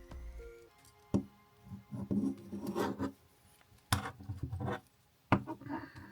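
Small parts of an RC truck's animal guard being handled and fitted: a few sharp clicks and knocks with scraping and rubbing between them. Background music cuts out about half a second in.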